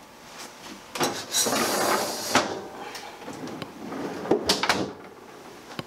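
The bottom freezer drawer of a residential French-door refrigerator slides on its rails with a rushing scrape and stops with a knock about two and a half seconds in. A few sharp clicks and knocks come about four and a half seconds in.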